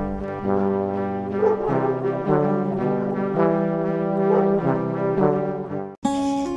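Intro theme music: a brass melody of held notes. It cuts off abruptly about six seconds in, where a different piece of music starts.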